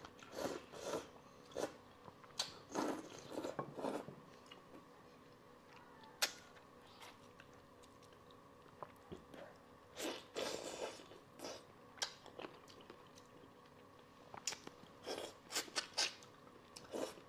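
Close-miked eating of a fish head in broth: wet chewing and sucking the flesh off pieces of fish bone, with mouth smacks and clicks coming in bunches, and a quieter stretch in the middle.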